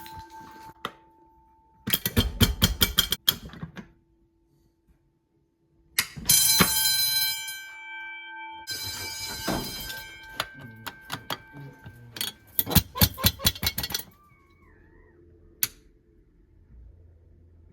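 Fire alarm bells ringing in short, loud bursts of rapid strikes with a ringing tone, several in turn, separated by brief gaps.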